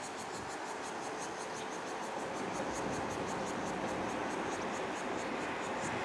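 Distant TEMU2000 Puyuma electric tilting train running across a concrete river viaduct, a steady rumble that grows slightly louder. Over it, insects chirp high and fast, about five or six pulses a second.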